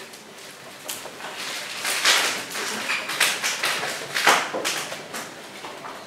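A paintbrush scrubbing oil paint across a stretched canvas: a run of scratchy strokes starting about a second in, heaviest in the middle, dying away near the end.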